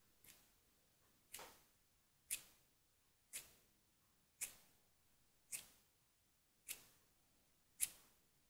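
Sharp ticks at a steady pace of about one a second, each with a short fading tail, over near silence.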